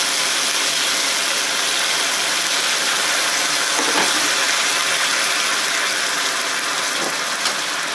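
Steady sizzling hiss of chicken and broccoli bubbling in a hot wok as the cornstarch-thickened sauce cooks down.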